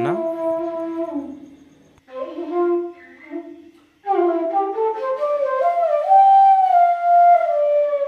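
Background instrumental music: a slow melody of long held notes that glide between pitches, breaking off about two seconds in and again just before four seconds, then carrying on in one long phrase.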